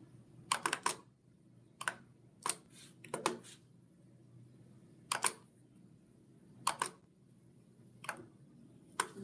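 Scattered sharp clicks, single or in quick clusters of two to four, from keys or buttons being pressed, over a faint steady room hum.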